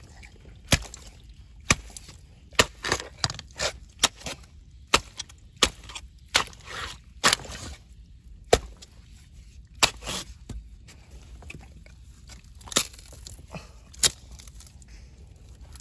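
A hand tool striking and digging into wet mangrove mud and roots to open a mud crab's burrow. It makes a series of irregular sharp knocks with a few scraping squelches, bunched in the first ten seconds, then two more knocks near the end.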